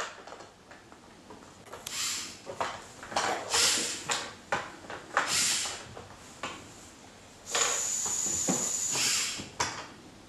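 LEGO Mindstorms TRACK3R robot's electric motors whirring and its rubber tracks running, in several short runs and then one longer run of about two seconds near the end with a steady high whine.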